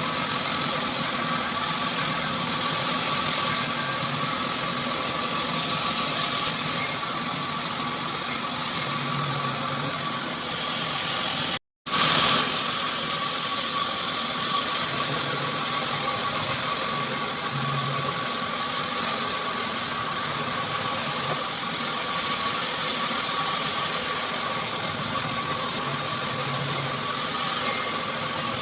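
Horizontal band sawmill running with a steady mechanical drone and a few steady whining tones. The sound drops out for a moment just before the middle and comes straight back the same.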